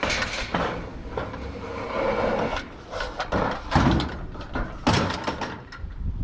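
Objects from a kerbside rubbish pile being picked up and moved, with irregular knocks, scrapes and clatter, the heaviest knock a little under four seconds in.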